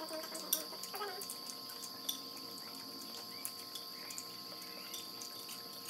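Steady high-pitched trill of crickets, with a few faint clicks of chopsticks and utensils against plates.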